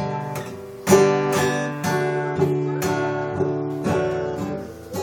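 Acoustic guitar strummed in an even rhythm, about two strums a second, each chord ringing on into the next; the loudest strum comes about a second in.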